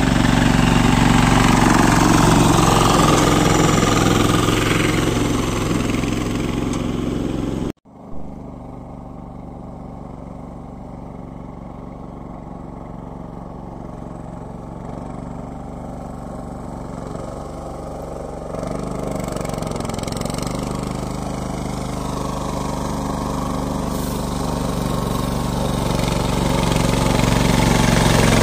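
Single-cylinder diesel engine of a two-wheel walking tractor (patpat) running steadily as it pulls a loaded trailer through mud. The engine sound cuts off abruptly about eight seconds in, returns fainter, and grows louder as the tractor comes closer.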